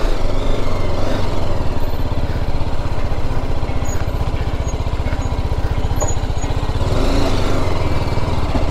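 Single-cylinder motorcycle engine running steadily at low revs with an even chugging beat, a little fuller about seven seconds in.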